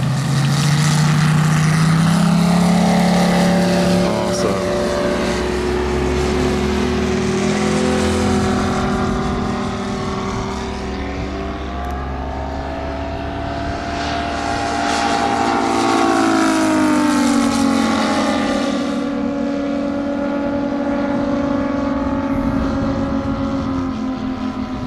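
Moki radial engine of a giant-scale RC F4U Corsair model running at high power as it takes off, its pitch rising in the first few seconds as it speeds up, then running steadily as it climbs away. About sixteen seconds in the pitch falls as the plane passes by.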